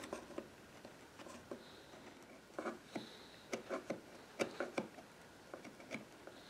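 A steel chisel chipping and scraping excess hardened epoxy off a wooden molding: a string of short, irregular clicks and scrapes, quiet.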